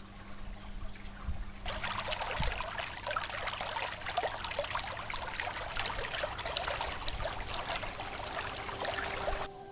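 Running water trickling and splashing. It sets in abruptly about two seconds in, continues dense and crackly, and cuts off sharply just before the end. Before it there is only a quieter low hum.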